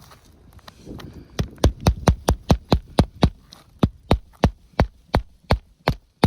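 A rapid, even series of hard knocks on an asphalt-shingle roof, about three to four a second, starting about a second and a half in and stopping near the end.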